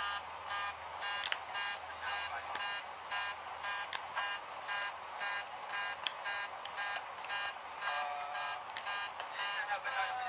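Cockpit warning alarm on an airliner's cockpit voice recording, sounding as rapid repeated beeps, about two to three a second, with scattered sharp clicks. A second, lower steady tone comes in about eight seconds in.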